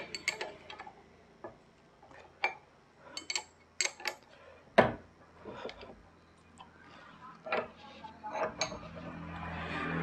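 Ring spanner working the terminal nut on a starter motor's solenoid, tightening it down on a wire loop: a scatter of sharp, irregular clicks and taps, the loudest about five seconds in.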